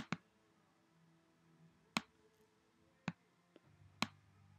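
Computer mouse clicking: a quick pair of sharp clicks at the start, then single clicks about two, three and four seconds in, as items are selected and dragged on screen.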